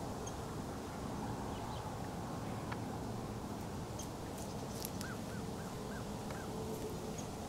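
Woods ambience: a steady low rush, with a bird giving four short, evenly spaced chirps about five seconds in and a few light rustles just before.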